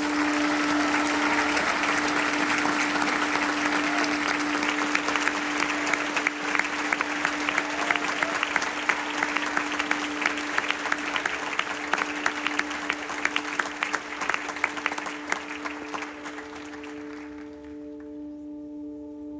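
Crowd applauding, a dense patter of many hands clapping that dies away about seventeen seconds in, over a steady held musical chord.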